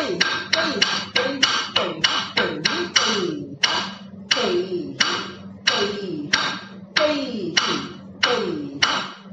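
Rhythmic sharp taps beating time for the Kudhithu Mettu adavu of Bharatanatyam, each followed by a short falling tone. About three strikes a second at first, slowing to roughly one every two thirds of a second from about three seconds in.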